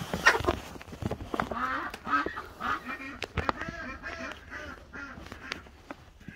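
A flock of chickens clucking: a run of short, repeated calls overlapping one another, with a few sharp taps in the first second.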